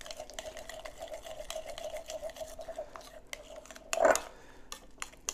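A fork stirring and mashing a soft egg-yolk and mayonnaise filling in a glass bowl: a rhythmic wet scraping with light clicks of the fork tines against the glass. About four seconds in there is a brief louder sound.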